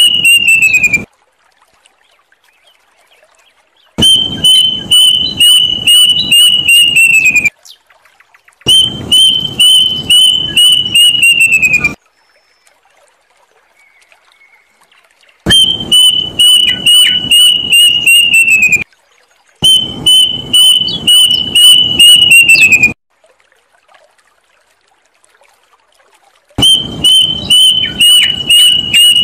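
Plaintive cuckoo calling: repeated phrases of quick, loud whistled notes, each phrase about three seconds long, holding one pitch and then sliding down at the end, with short pauses between phrases, six phrases in all.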